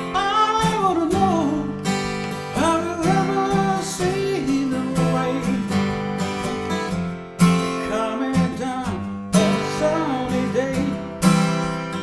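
Acoustic guitar strummed in a steady rhythm, with a melody line that slides up and down over the chords.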